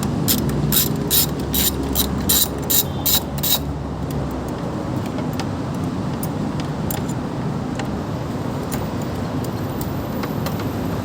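Ratchet wrench clicking in quick, even strokes, about two or three clicks a second, stopping after about three and a half seconds. A steady low hum runs underneath.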